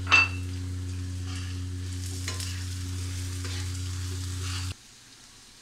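A metal spatula stirring and scraping shredded carrots and yardlong beans in a wok as they fry in ghee with a light sizzle, starting with a loud clank. A steady low hum runs underneath and cuts off suddenly about three-quarters of the way through.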